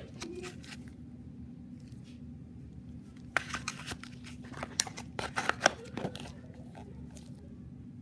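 Gloved hands handling a Zippo lighter's cardboard box: bursts of clicks, taps and scraping rustles as the lighter is set into the box and the box is closed, most of them about three and a half seconds in and again between five and six seconds. A faint steady hum lies underneath.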